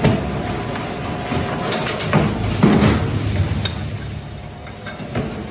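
Twin-shaft scrap metal shredder running with a steady hum, its toothed cutter discs crunching and clinking as they chew metal lathe turnings. Irregular metallic knocks throughout, the loudest a couple of seconds in and again just before the three-second mark.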